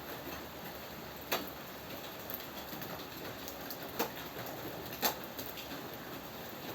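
Steady rain falling, with a few louder drops striking a hard surface as sharp ticks: three stand out, about a second in, about four seconds in and about five seconds in.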